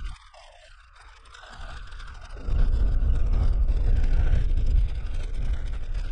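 Suzuki Jimny driving on an unpaved desert road, heard from inside the cabin: a low rumble of tyre and road noise with the engine. It is quieter for about the first two seconds, then loud and steady from about two and a half seconds in.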